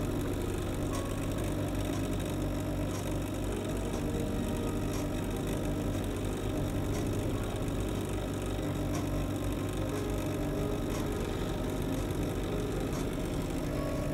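Computer fan fitted inside an egg incubator, running with a steady hum.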